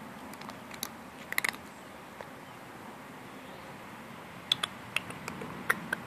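A house cat eating dry kibble from a stainless steel bowl: sharp crunches and clicks of kibble in two clusters, a little over a second in and again near the end.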